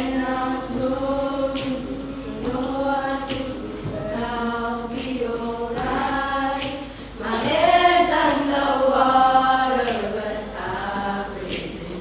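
A group of children singing a song together, in long held notes, growing louder and higher about two-thirds of the way through.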